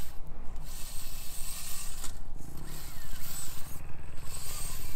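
FMS FCX24 micro RC rock crawler's small electric motor and geared drivetrain whining as it works at a steep rock section. The whine comes in bursts, broken by three short pauses where the throttle eases off; the truck is straining at a line it can't clear.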